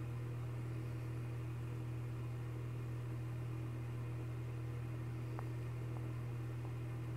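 A steady low hum with an even hiss over it, unchanging throughout, with a few faint ticks in the second half.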